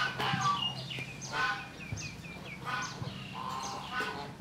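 Domestic fowl calling repeatedly, a burst of short calls about every second or so, over a faint steady low hum.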